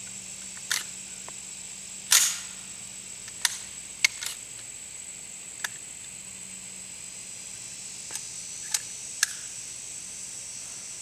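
Scattered sharp metallic clicks and clacks from an AR-style 300 AAC Blackout pistol being handled after firing. The loudest clack comes about two seconds in, with a cluster of smaller clicks around three to four seconds and a few more near the end.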